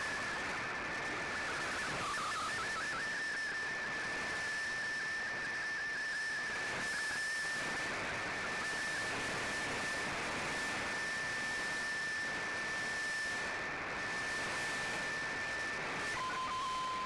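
Shortwave receiver audio of an MFSK digital-picture transmission: a steady high whistle-like tone over band hiss and static, wavering briefly about two seconds in. Near the end it drops to a lower steady tone.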